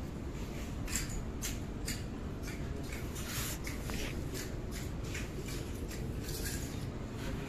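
Short scratchy rustling and handling noises, about one or two a second, over a steady low background rumble, as clothes on a rack are handled.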